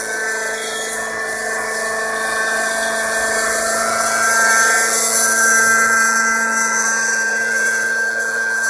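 Radio-controlled Bell 206 LongRanger scale helicopter on Thunder Tiger Raptor 50 mechanics, its glow-fuel engine running with a high, steady whine under the rotor hum as it hovers low. The sound swells a little about halfway through, with small shifts in pitch.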